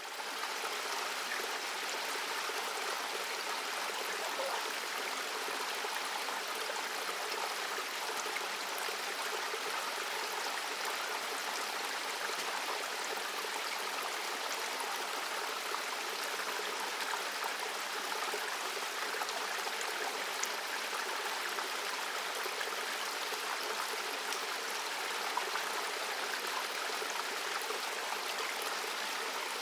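Running water, like a stream, with a steady, even rushing sound.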